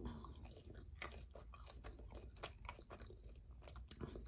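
A person chewing food close to the microphone, with soft, irregular crunches and clicks throughout.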